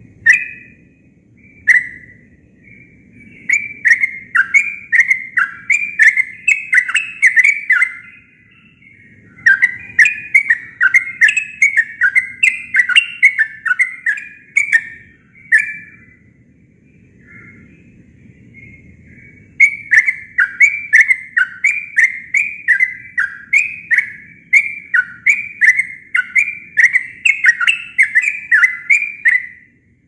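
Caged yellow-vented bulbul singing its natural song, with no learned phrases from other birds. After two single notes it gives three long runs of rapid bubbling notes, with short pauses between them.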